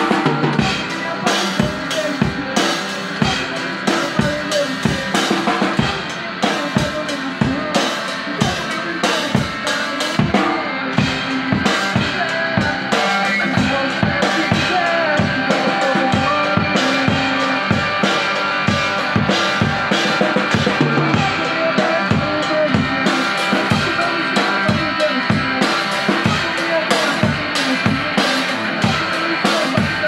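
Live band jam: a drum kit keeps a steady rock beat with kick, snare and cymbals under an electric guitar played through a small amplifier.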